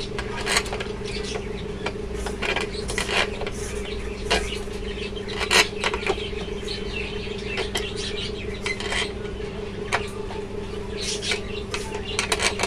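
Irregular metallic clinks and knocks from hands handling a sewing machine motor and its fittings, over a steady electrical hum.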